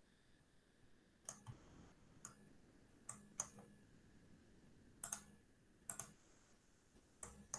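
Computer mouse clicking: about ten faint, single clicks at irregular intervals, as edges are picked one at a time in CAD software.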